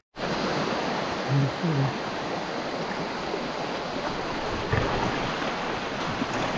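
Shallow forest stream running over rocks, a steady rush of water, with a couple of brief voice sounds about a second and a half in.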